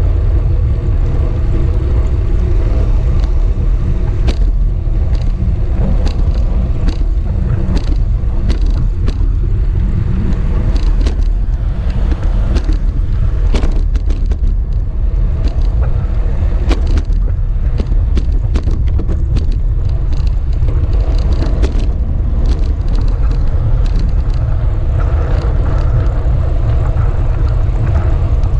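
Steady loud rumble of road vibration and wind on a bicycle-mounted camera, with frequent small clicks and rattles.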